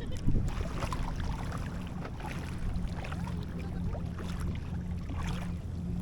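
Steady low wind rumble buffeting the action camera's microphone, with scattered small knocks and splashes over it.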